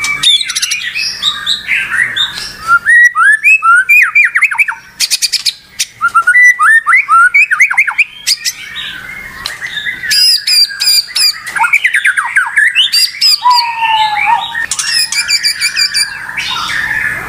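White-rumped shama singing a loud, non-stop, varied song of rapid down-slurred notes, harsh squawks and high trills, with one longer falling whistle about two-thirds of the way in. It is a bird in full, agitated song (gacor).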